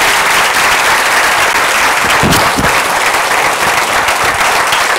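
Audience applauding steadily, a room full of people clapping at the close of a talk.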